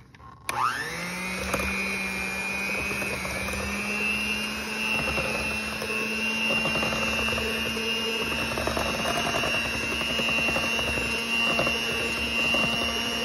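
Electric hand mixer starting up about half a second in, its motor whine rising quickly to a steady pitch, the beaters whisking eggs, sugar and oil in a glass bowl.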